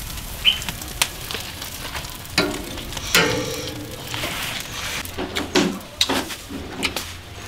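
Pig intestines sizzling on a barbecue grill, with a few sharp clicks.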